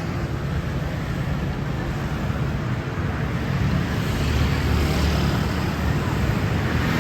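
Road traffic noise with a heavy vehicle's engine running steadily, growing a little louder in the second half.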